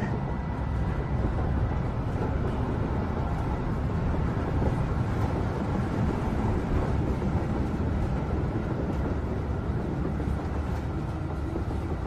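A metro train running, heard from inside the carriage: a steady, even low rumble.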